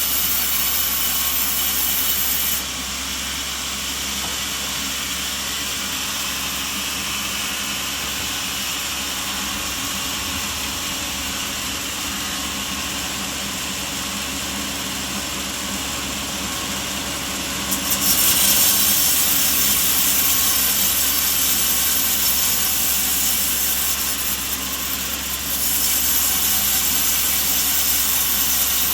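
Sawmill machinery running with a saw cutting coconut wood: a steady mechanical drone and hiss. The noise drops abruptly about three seconds in and jumps up again near 18 and 26 seconds.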